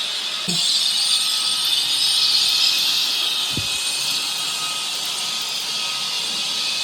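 Cordless stick vacuum running with a steady high rushing hiss that gets louder about half a second in. Debris clinks as it is sucked up, and there is a short low thump about three and a half seconds in.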